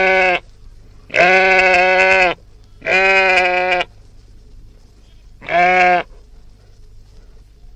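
Sheep bleating: four steady-pitched bleats, each lasting a second or less, with short pauses between them, the first already under way at the start.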